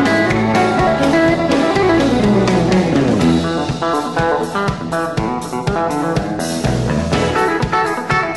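A live instrumental band of twangy electric guitars, bass and drums playing a country-style hybrid-picked ("chicken picking") lead. About two seconds in, a guitar line falls steeply in pitch, and it is followed by quick, short picked notes.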